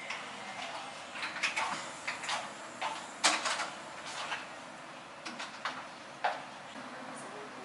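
Interior door being opened, with several sharp clicks and light knocks from its handle and latch and from someone walking through. The loudest knock comes about three seconds in, over a steady hiss of room noise.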